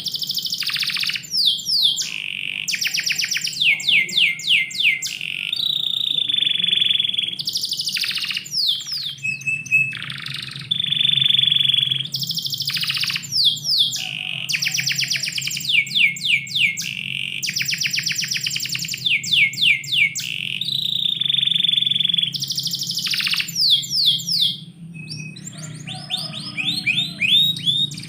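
Domestic canary singing a long, continuous song of fast trills, repeated falling sweeps and held high whistled notes, with a short lull about three-quarters of the way through.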